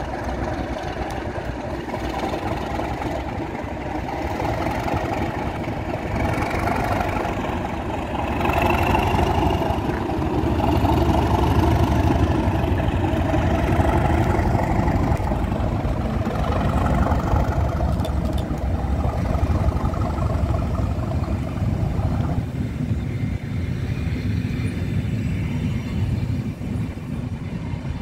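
Class 37 diesel-electric locomotive's English Electric V12 engine grumbling under power as it pulls away and passes close by, loudest as the locomotive goes past about a third of the way in. Near the end the engine note fades and the rumble of the test train's coaches rolling along the track remains.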